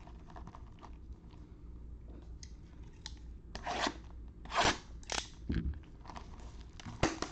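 Plastic shrink wrap on a sealed trading card box crackling as gloved hands handle it. There are faint crinkles at first, then a few loud crunches about halfway through, as the wrap is worked open.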